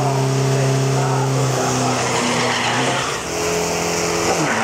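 Isuzu D-Max turbo-diesel drag truck doing a burnout: the engine held at steady high revs while the spinning rear tyres squeal. Later the engine note shifts, and near the end the revs drop sharply.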